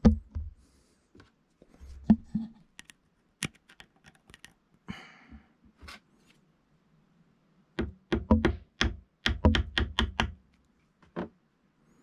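Hammer tapping a small flat-headed screwdriver to drive the old, cut-through bushing out of a RockShox Monarch rear shock eyelet. A few scattered sharp taps come first, then a quick run of several taps a second about two-thirds of the way in.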